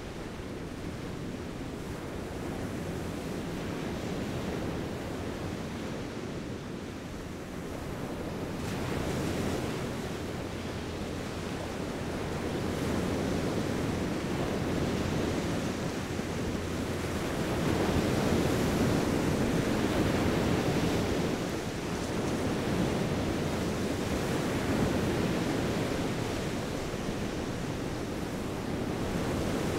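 Sea surf washing onto a beach, a steady rush of noise that rises and falls in slow swells.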